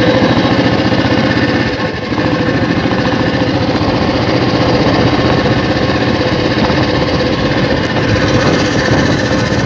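1974 Royal Enfield Bullet 350's single-cylinder four-stroke engine running steadily as the motorcycle is ridden, its rapid exhaust beat heard from the rider's seat, with a brief dip about two seconds in.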